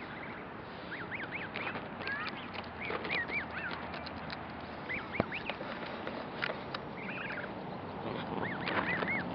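Goslings peeping: short, high whistled calls that rise and fall, coming in clusters of two or three, over a steady background hiss. There is one sharp click about five seconds in.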